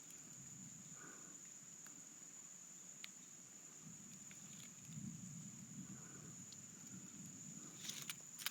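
Very quiet woodland with a steady, thin high-pitched insect drone, and soft rustling from someone moving through the undergrowth around the middle.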